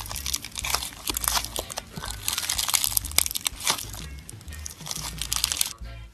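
Crunchy slime being squeezed and pressed by hand, giving dense, fast crackling and popping, over background music; the crackling stops near the end.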